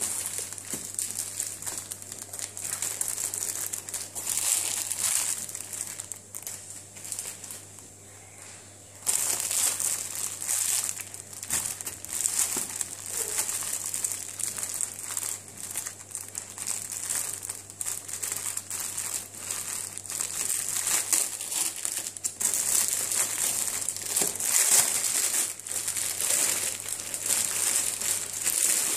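Clear plastic bag crinkling as hands handle it and pull it open around a cake, a continuous run of rustles with a quieter spell about seven to nine seconds in.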